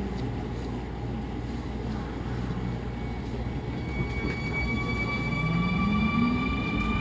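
Seoul Subway Line 5 train starting off: a steady rumble of the running gear, then from about four seconds in the traction motors set up a whine of several pitches that climbs as the train gathers speed.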